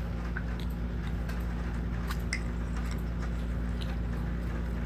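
Slime being handled and squished, giving scattered small sticky clicks and pops over a steady low hum.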